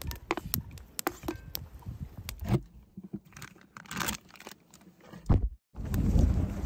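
Potato chunks clattering into a hot, oiled cast iron skillet, then a plastic zip-top bag rustling. After a brief break, a wooden spatula stirs and scrapes the potatoes around the cast iron skillet.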